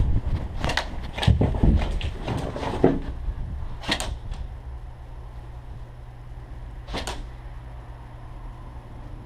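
Movement noise of an airsoft player picking his way between plywood barricades, with sharp knocks and cracks: a cluster in the first three seconds, then single ones about four and seven seconds in.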